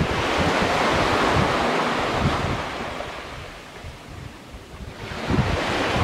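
Black Sea waves breaking on a beach: the hiss of one wave swells, washes up the shore and fades by about four seconds in, then the next wave starts breaking near the end. Wind gusts rumble on the microphone throughout.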